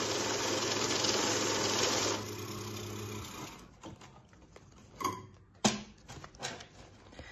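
Electric banknote counting machine whirring steadily as it feeds a stack of $100 bills through. The counting stops about two seconds in, a quieter hum carries on for about another second, then come a few short clicks and rustles as the counted stack is lifted out of the tray.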